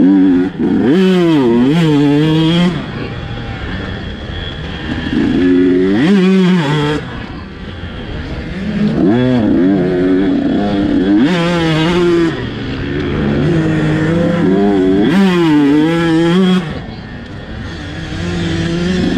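On-board sound of a KTM dirt bike's engine being ridden hard, the revs climbing steeply and dropping back again and again as the rider pulls through the gears and shuts off for the turns. There are about five strong high-rev pulls, with lower revs between them.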